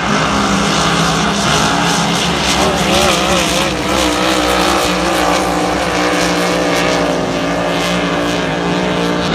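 Grand Prix hydroplane race boats' engines running at racing speed: a loud, continuous drone whose pitch wavers up and down from about two and a half seconds in.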